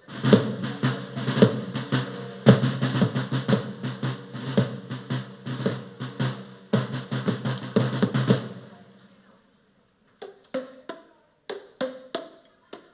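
Rapid drumming with rolls and snare hits for about eight seconds, then it stops suddenly. After a pause of about a second, single hollow pitched knocks follow one at a time, from coloured plastic percussion tubes being struck.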